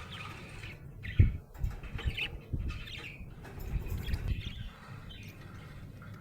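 Budgerigar chirping and warbling in short, scattered calls, over a series of soft low thumps, the loudest about a second in.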